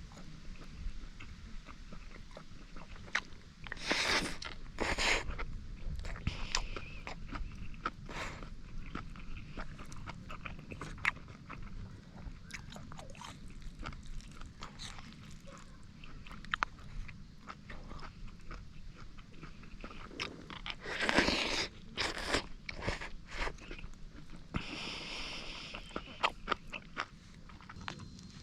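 A person chewing and crunching food in irregular bites, with a few louder crunches and a short rustle near the end.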